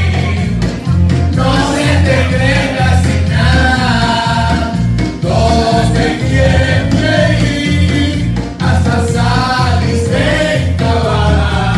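A group of men singing a song in harmony, with a pulsing bass line underneath.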